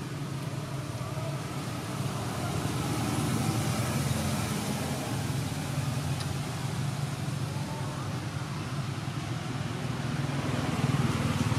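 Steady outdoor background rumble and hiss, strongest low down, with no distinct events, swelling slightly a few seconds in and again near the end.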